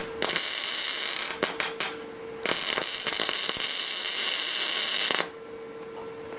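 Welding arc crackling on thin car-body sheet metal: a burst of about a second, a few short stutters, then a steady run of nearly three seconds that stops abruptly. A steady hum, typical of the welder, sounds between the arcs.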